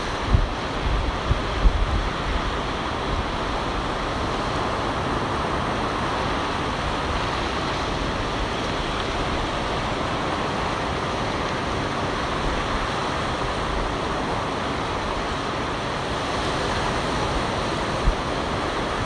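Ocean surf breaking and washing up the beach, a steady rush of waves. Wind buffets the microphone in the first couple of seconds.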